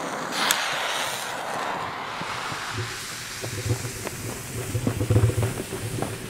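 A firework fuse catching with a sharp spit about half a second in, then hissing as it burns, followed by irregular thumping footsteps hurrying away over the ground.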